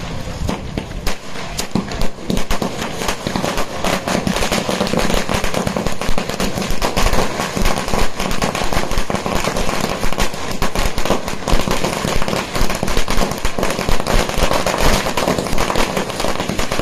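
A long ground-laid string of firecrackers (a cracker chain) going off along its length in a rapid, unbroken run of sharp bangs.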